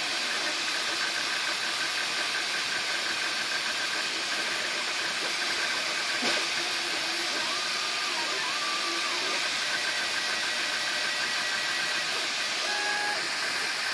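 FDM 3D printer running mid-print: a steady hiss from its fans, with the stepper motors whining in short tones that change pitch as the print head moves. One sharp click about six seconds in.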